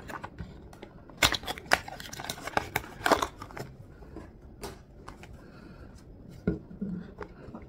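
Small cardboard box being opened and handled by hand: scattered crinkles, scrapes and clicks of the paperboard, a few louder ones about a second in, around three seconds and near the end.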